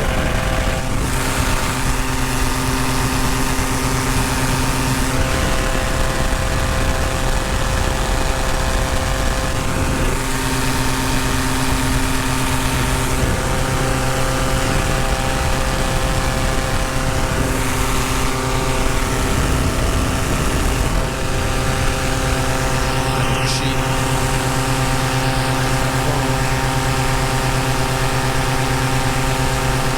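Paramotor engine and propeller running steadily at cruise power in flight, with slight shifts in pitch every few seconds as the throttle changes.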